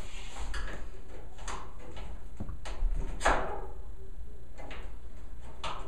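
Sheet-metal clunks and knocks from the top panel of a Kenmore 80 Series electric dryer being pushed and tugged as someone tries to pop it open. There are about six knocks, the loudest a little over three seconds in, with a short ringing tail.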